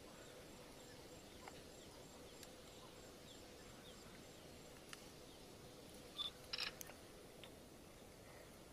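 Near silence: faint steady background hiss, broken by a brief cluster of short, sharp clicks and a chirp about six and a half seconds in.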